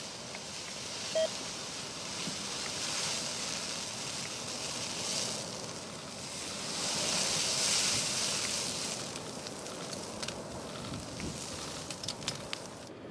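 Wildfire burning through roadside trees: a rushing noise of flames and wind that swells twice, with sharp crackles and pops near the end. A short beep about a second in.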